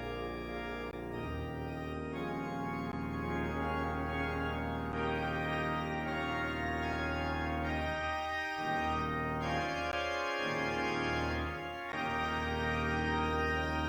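Organ playing sustained full chords that change every few seconds, as the postlude closing a church service.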